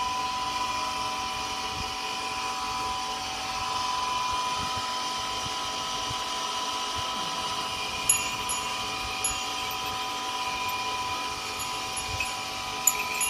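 A machine running steadily, a hum with a high, even whine. A few short sharp clinks come about eight seconds in and again near the end.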